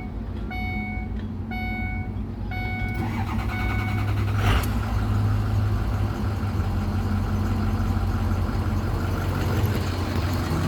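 2006 Ford F350's 6.0L Power Stroke V8 diesel being cranked on the starter while a dashboard warning chime beeps about once a second, then catching about four and a half seconds in and running steadily. The long crank follows the replacement of a bad fuel injection control module (FICM).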